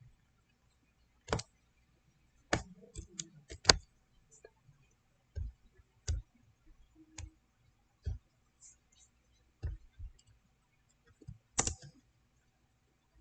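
About a dozen short, sharp computer mouse clicks at uneven intervals, the loudest near the start and again near the end.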